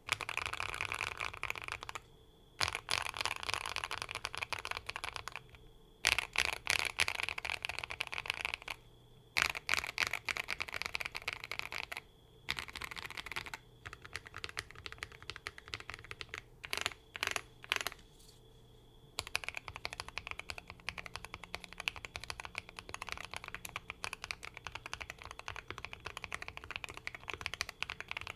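Typing on a Bridge75 mechanical keyboard fitted with hand-lubed Princess linear switches, a PC plate, tape mod and full foam: a muffled, deep clacking. It comes in fast runs of keystrokes a few seconds long with short pauses, a handful of single presses midway, then steady continuous typing for the last third.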